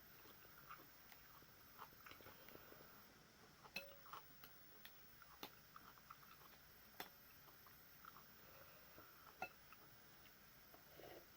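Faint eating sounds: soft chewing with scattered small clicks and ticks, a few sharper ones standing out, as someone eats noodle soup with meatballs.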